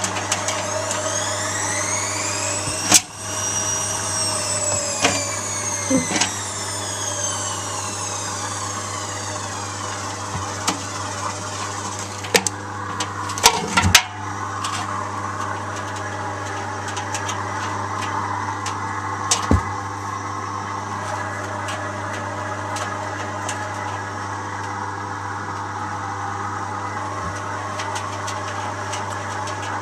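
Zanussi washing machine running with its drum turning: a steady motor hum under a whine that rises and then falls back over the first ten seconds, with a few sharp knocks and clatters from around 3, 6, 13 and 19 seconds in.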